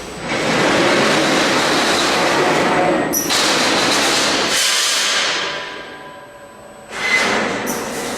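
Schlatter MG210 mesh welding machine running, a dense mechanical clatter with sharp clanks. It dies down for about two seconds past the middle, then starts up loud again.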